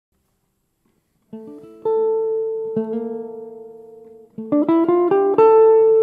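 Solo hollow-body jazz guitar: after about a second of silence, soft then loud ringing chords. Near the end, a quick run of notes leads into a loud sustained chord.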